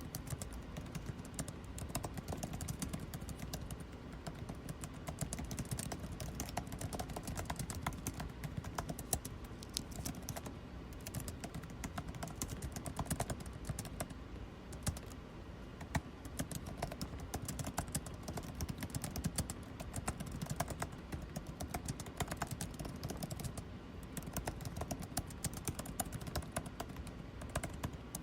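Computer keyboard typing: rapid, irregular key clicks that run on without a break, over the steady low hum of air conditioning.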